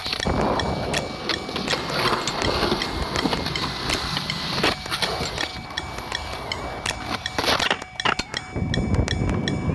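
Skateboard wheels rolling on concrete, with frequent clacks and knocks from the board; the rolling rumble grows heavier near the end.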